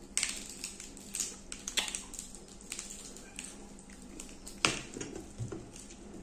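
Eating by hand at a table: lettuce leaves and crisp fried fish being torn, handled and chewed, a scatter of short crackles and clicks with one louder snap about four and a half seconds in.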